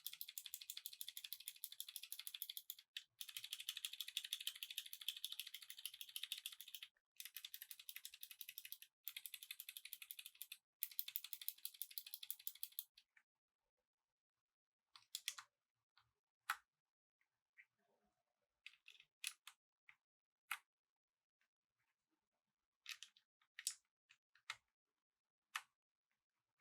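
Typing on a Razer BlackWidow V3 Pro mechanical keyboard with green clicky switches: fast, continuous keystrokes with a few brief pauses for about the first thirteen seconds. After that come only isolated single keystrokes, a second or more apart.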